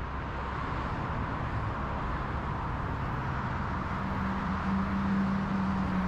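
Car driving on a road: steady road and engine noise, with a steady low hum coming in about two thirds of the way through.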